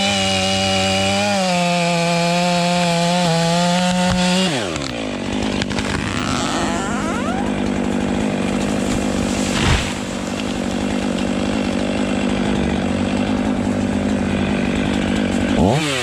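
Two-stroke chainsaw running at high revs, then dropping sharply in pitch about four and a half seconds in and carrying on steadily with a rougher, noisier sound as it cuts wood. Near the end the engine revs quickly up and down.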